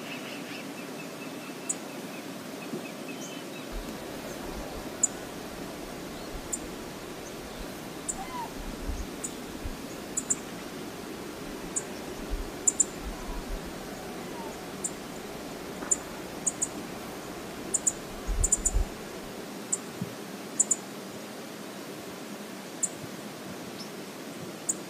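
Steady outdoor hiss of the flowing river, with many short, high bird chirps scattered throughout and faint low rumbles in the middle.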